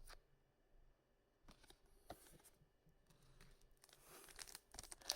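Faint crinkling and rustling of a foil trading-card booster pack being handled and torn open, with a few light clicks at first and growing louder near the end.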